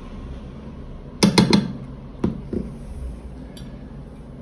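A spoon knocking against a bowl: a quick run of three or four knocks about a second in, then two single knocks a little later.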